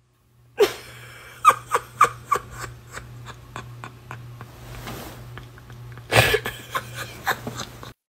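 A woman laughing helplessly, her laughter stifled behind a hand over her mouth. It comes as breathy, snorting bursts in quick runs, with a louder burst about six seconds in.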